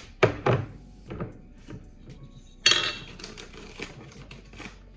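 Kitchen containers and utensils handled on a countertop: two sharp knocks right at the start, a smaller knock about a second in, then a brief, louder clatter just under three seconds in, followed by a few light taps.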